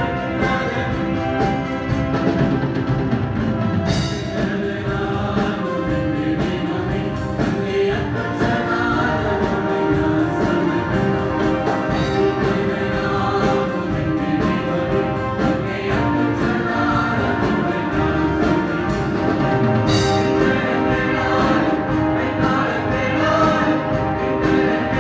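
Church choir singing gospel music with instrumental accompaniment and a steady beat.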